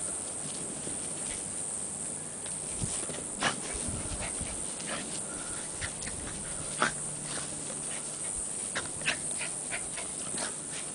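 Rat terrier and pit bull play-fighting: scattered short, sharp dog sounds at irregular intervals, mixed with scuffling in dirt and grass.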